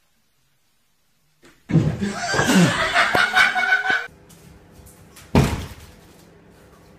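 A loud, noisy crash-like clatter lasting about two seconds, starting suddenly after a silence, then a single sharp bang about a second later.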